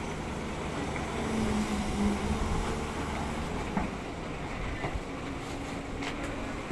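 SANY SY215C hydraulic excavator's diesel engine running steadily, with a low hum that grows louder for a moment about a second and a half in. A few light knocks sound over it.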